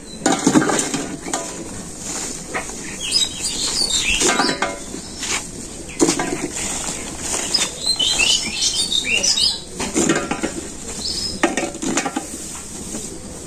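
Dry cow-dung cakes being gathered by hand and dropped into a metal bowl: repeated light knocks, clatter and scraping of the brittle cakes on concrete and against the bowl. Small birds chirp now and then over it.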